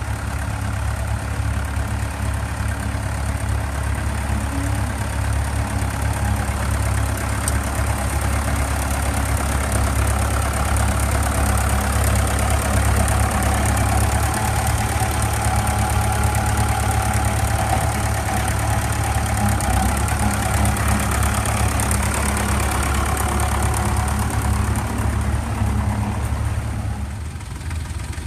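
Fordson tractor engine running steadily as it pulls a plough past, getting a little louder in the middle of the pass. Just before the end the sound drops and changes to another tractor's engine.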